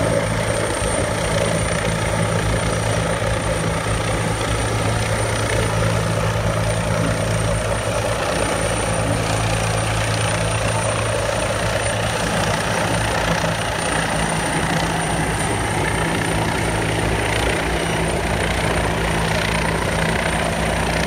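Helicopters running close by: a steady turbine-and-rotor hum with a low, even drone that does not change.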